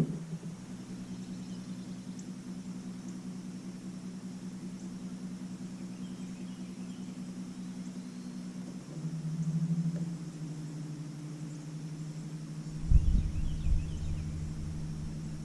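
A boat's electric trolling motor running with a steady hum, stepping up in speed about nine seconds in. A short knock at the very start, and wind rumbling on the microphone near the end.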